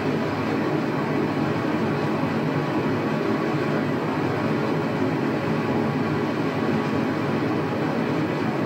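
Waterfall: a steady rush of falling water with no let-up.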